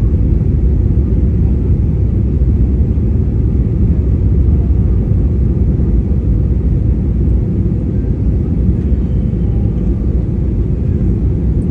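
Airliner cabin noise during the landing approach: a steady low rumble of engines and airflow.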